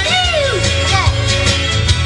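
Country music: guitar, bass and a steady beat, with a high melody note that slides down in the first second.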